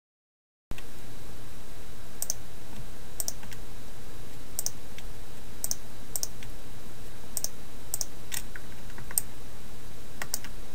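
Scattered clicks of a computer mouse and keyboard, about one a second and irregular, over a steady low hum and hiss. The sound cuts in suddenly under a second in.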